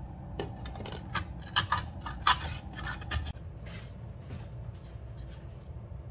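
Kitchen clatter of dishes and cookware: a quick run of sharp clicks, knocks and scrapes for about the first three seconds, then a few fainter ticks, over a steady low hum.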